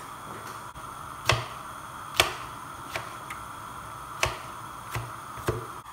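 Kitchen knife chopping tomatoes on a cutting board: about six uneven knocks of the blade on the board, over a steady faint hum.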